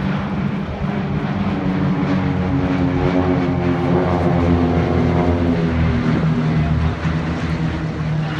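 A formation of single-engine propeller aircraft flying over with engines droning. The sound grows louder toward the middle, and the pitch falls as the planes pass by.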